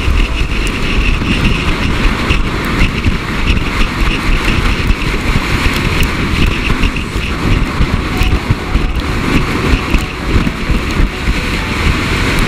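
Wind buffeting the microphone in strong gusts at high speed, over a steady rough hiss of a plastic ice sled scraping along packed snow as it is towed behind a car.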